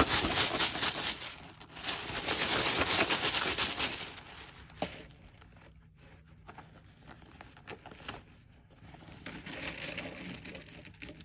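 A bag of numbered draw slips being shaken hard, a loud crinkling rattle, for about four seconds. Then quieter rustling as a hand rummages in the bag to pick a number, with a single sharp click about five seconds in.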